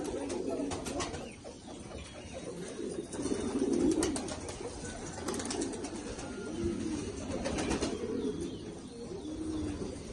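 Domestic pigeons cooing: low, repeated coos every couple of seconds from a male puffed up in courtship display, with a few light clicks between.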